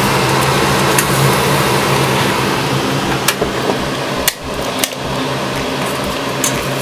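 Steady fan-like hum, with a few sharp clinks of a metal spoon against cookware, most of them between about three and five seconds in.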